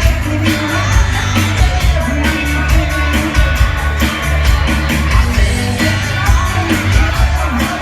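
Live band playing a song with a singing voice over a steady drumbeat and bass.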